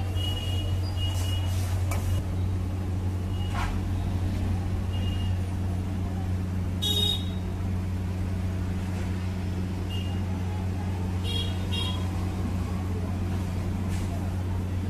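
A steel spatula scraping and clinking against an iron wok over a steady low hum, with a brief high tone about seven seconds in.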